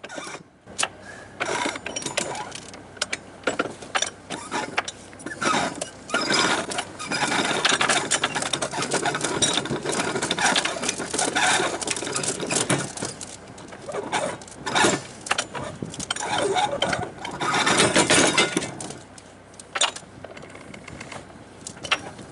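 Anchor chain being hauled aboard a sailboat's bow by windlass and by hand, the metal links clanking and rattling in quick irregular bursts, busiest from about six to nineteen seconds in. The boat's auxiliary engine idles underneath.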